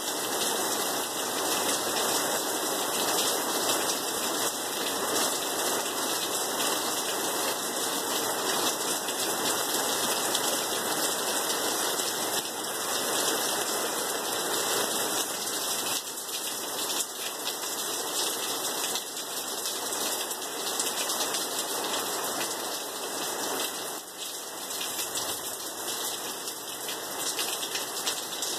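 Heavy rain falling steadily on a concrete driveway and lawn during a summer thunderstorm, easing a little in the second half.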